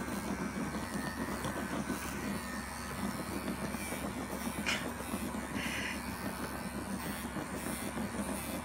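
Electric animal clippers running steadily, shearing wool from a German angora rabbit's chest, with one short click about halfway through.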